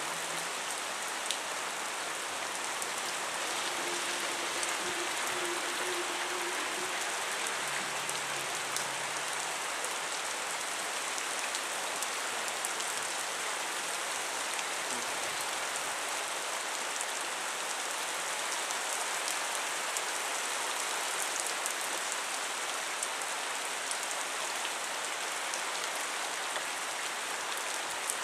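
Steady thunderstorm rain falling, with a constant hiss and many sharp ticks of single drops landing close by.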